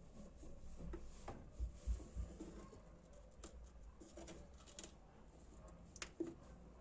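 Faint scattered clicks and light taps of handling over a low hum, with a few louder taps about two seconds in and again near the end.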